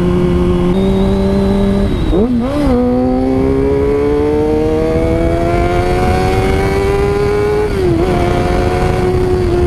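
Honda CBR600RR inline-four engine running under a rider at speed. The revs hold steady, dip and recover about two seconds in, then climb steadily for about five seconds before dropping at a gear change near the end. Wind rushes over the microphone throughout.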